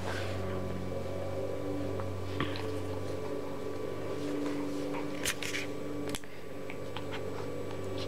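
A steady low hum, with a few soft rustles and small clicks as a small dog squirms and rolls on the bedding.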